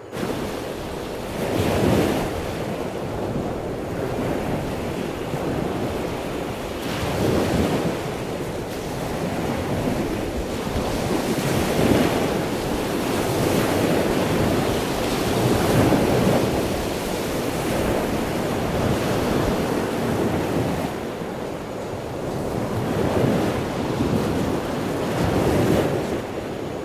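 Sea surf: a steady rush of breaking waves that swells and ebbs every few seconds.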